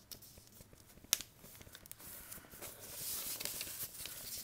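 Sheet of paper being folded and creased by hand: soft rustling and crinkling, with a sharp tap about a second in and louder rustling near the end.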